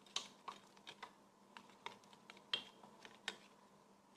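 A small metal keychain clasp clicking against a plastic loop and hard case as a plush keyring is clipped on by hand: a run of about ten short, sharp clicks, the loudest two and a half and three and a quarter seconds in.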